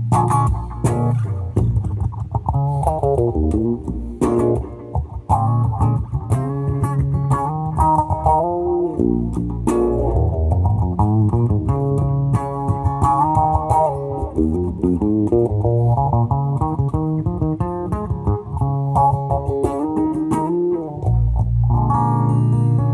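Background music led by plucked guitar over a bass guitar line, with busy changing melodic notes throughout.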